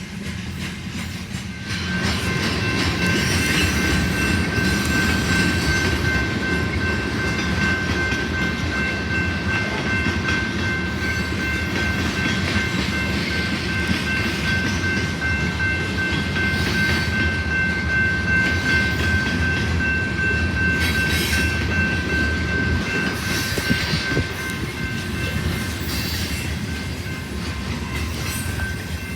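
Manifest freight train passing, with a steady rumble and the clatter of wheels over rail joints that grows loud about two seconds in. A steady high whine rides over the rumble.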